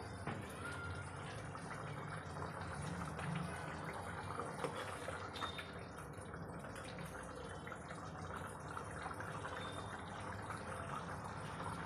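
Spinach gravy bubbling on the boil in a nonstick kadai, with a spoon stirring it and gravy dripping back off the spoon into the pan.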